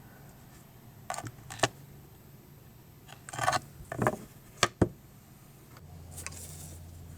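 Small repair tools and iPhone 8 parts being handled on a workbench: scattered clicks and light metallic clinks, the sharpest two in quick succession about two thirds of the way in.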